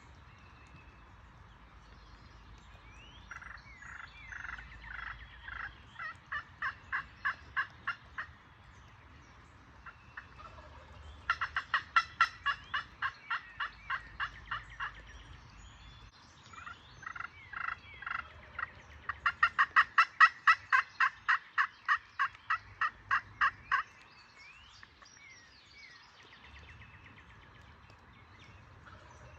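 Turkey yelping: three runs of evenly spaced yelps at about three a second, each run lasting several seconds. The last run is the longest and loudest.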